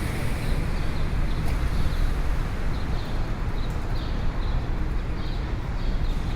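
City street ambience: a steady low rumble of traffic with many short, high chirps of small birds scattered over it.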